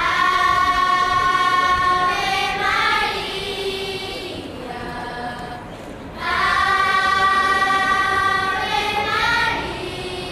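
Children's school choir singing in unison, in two long phrases of held notes, the second starting about six seconds in.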